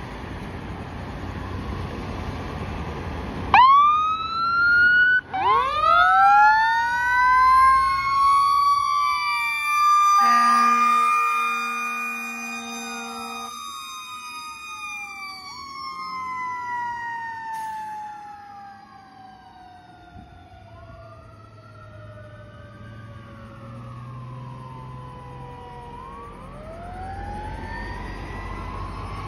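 Siren of a 2014 Pierce Impel fire engine responding to a call: after a few seconds of engine rumble it whoops up sharply twice and wails, with two horn blasts about ten seconds in. The siren then winds slowly down for about ten seconds and starts climbing again near the end.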